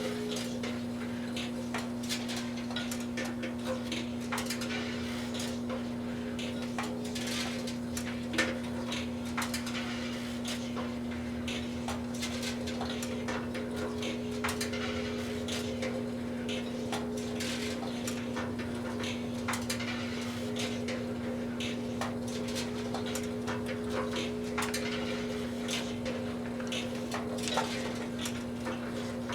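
Two microwave ovens running with a steady electrical hum, while Christmas lights inside them spark and arc with irregular crackling snaps.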